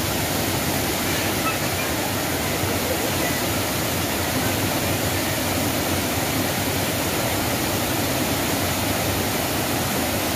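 Waterfall pouring over a wide rock ledge onto boulders: a steady, loud rush of falling water.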